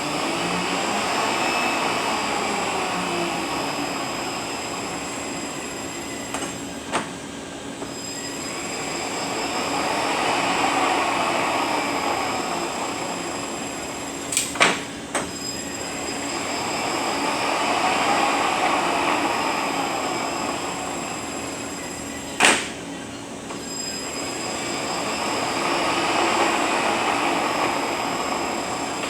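Rebuilt Eaton Fuller RTLO-18918B 18-speed truck transmission running on a test dyno: a steady mechanical whine and hum that swells and fades about every eight seconds, with a sharp click at each low point, three times.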